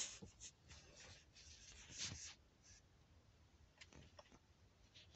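Faint rustling of fabric and handling of the phone against clothing, with a louder rustle about two seconds in and a few soft clicks later on; otherwise near silence.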